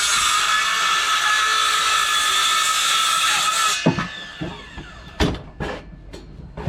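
An electric hand power tool running steadily, cutting off just under four seconds in. After it stops come several separate knocks and clatters.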